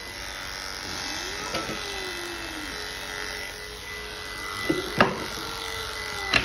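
Electric pet hair clipper running with a steady buzz as it shaves a cat's belly fur, with two sharp clicks in the second half.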